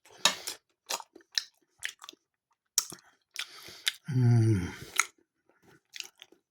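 Close-up mouth sounds of someone biting into and chewing a mini pork pie topped with Branston pickle: sharp wet clicks and small crunches, with a short hummed murmur from the eater about four seconds in.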